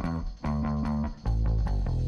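Background music: bass and guitar over a steady drum beat.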